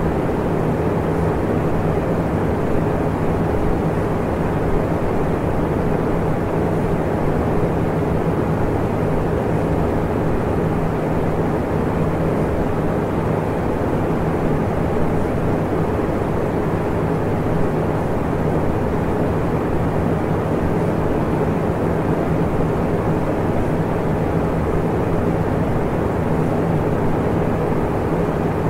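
Steady, muffled rushing noise with a faint hum in it, unchanging throughout: the masking sound bed of a subliminal affirmation track.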